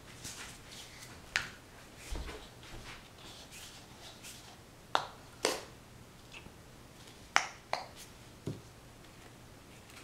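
Scattered sharp taps and clicks, about six of them, from painting gear being handled, with soft rustling in between.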